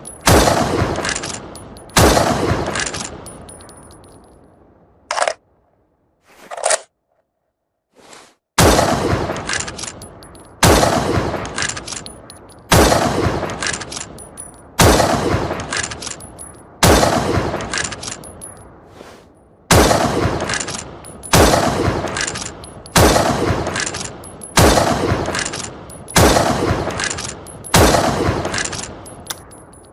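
Remington Model 700 bolt-action rifle shots, each a sharp crack with a long echoing tail, repeated about every two seconds. After the first two shots there is a pause of several seconds holding two short, quieter sounds before the shots resume.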